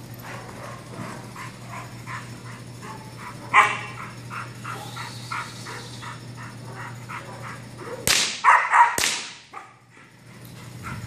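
A 7-month-old Belgian Malinois puppy barking over and over in quick succession, about three to four barks a second, worked up during protection bite training. One much louder bark comes about three and a half seconds in, and a few loud sudden sounds come together around eight to nine seconds in.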